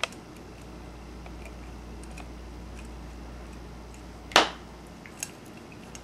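Small clicks and taps of a screwdriver and small parts being worked on an iPod Video's metal back plate, with one loud sharp click about four seconds in and a smaller one just after, over a low steady hum.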